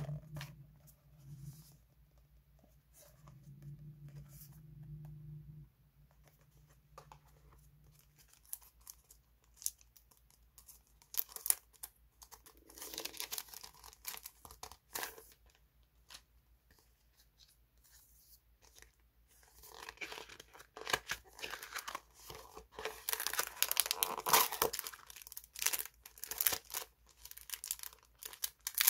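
Paper stationery and clear plastic packaging handled by hand: scattered taps and rustles at first, then from about twenty seconds in a dense crinkling and tearing as a clear plastic bag is peeled open.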